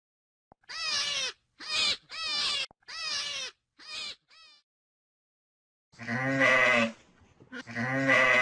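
A run of five short, high, quavering squeals, then a sheep bleating twice near the end with long, wavering bleats.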